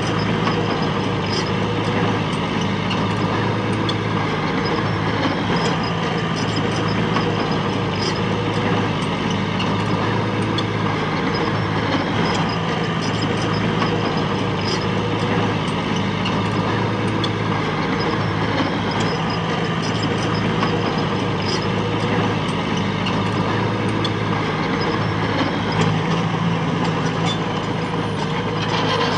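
Heavy diesel engine of earthmoving machinery running steadily, with faint scattered ticks and clanks over it.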